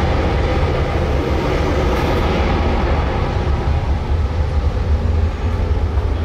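Airbus A320 airliner's jet engines running at high power as it rolls along the runway: a loud, steady rumble.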